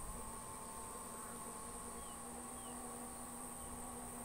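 Faint steady hum of a 7-inch quadcopter's motors and propellers flying high overhead, its pitch drifting slightly, over a steady high insect buzz. A few faint short chirps sound about two seconds in.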